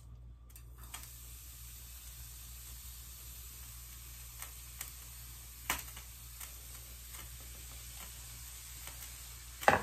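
Zucchini noodles sizzling in a hot frying pan, starting about half a second in as they go into the pan, with a few light clicks and a knock near the end.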